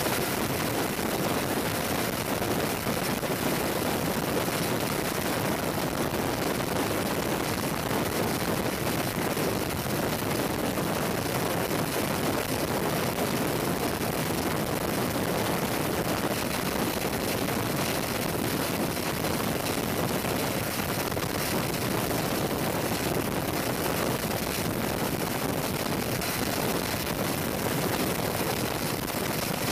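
Steady, even rush of aircraft engine and airflow noise, heard from aboard an aircraft in flight, with no change in level.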